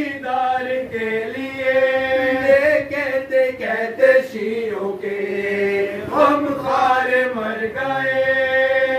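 A group of men chanting a mourning lament (noha) together, unaccompanied, in long held melodic notes.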